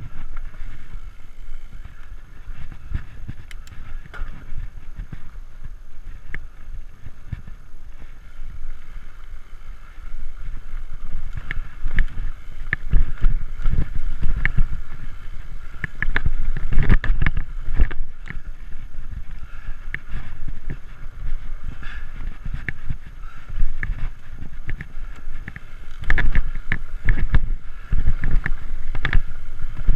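Framed Alaskan fat-tire mountain bike ridden over a dirt singletrack: a steady rumble of tyres and wind buffeting on the chest-mounted microphone, with rattles and knocks from the bike over bumps that get louder and busier in the middle and again near the end.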